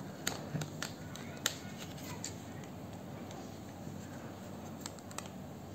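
Small sharp plastic clicks from handling a Canon EOS M50 Mark II camera body and its battery compartment door, a few in the first two seconds and two more near the end.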